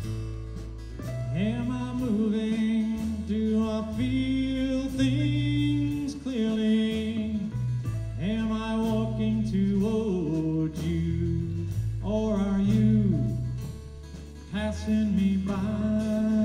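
Live rock band playing a song on electric guitars, bass and drums, with a male voice singing in phrases over a steady drum beat.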